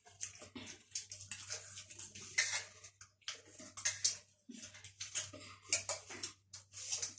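Crunching and crackling of chatpate, a spicy puffed-rice snack, being eaten, in quick irregular crisp bursts with faint scraping, over a low steady hum.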